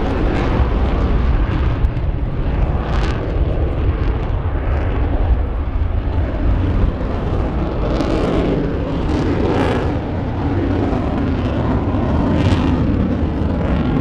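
Eurofighter Typhoon's twin EJ200 jet engines running in afterburner as it climbs away: a loud, steady low roar with a few brief harsher surges.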